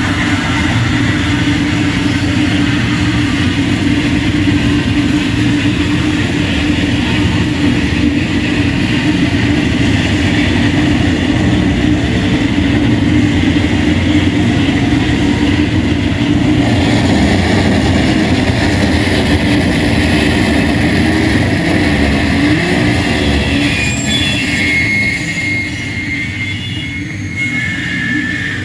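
Live harsh noise music: a loud, dense wall of distorted noise with a steady low drone and a high squealing tone. It thins out and turns to a higher whistle near the end.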